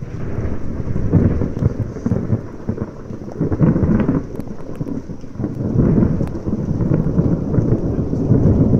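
Thunder: a long, deep rolling rumble that surges in several waves, with rain falling.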